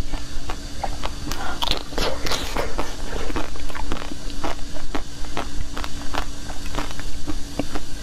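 Close-miked crunching and chewing of a frozen chocolate: a run of sharp, crackly bites, densest about two seconds in.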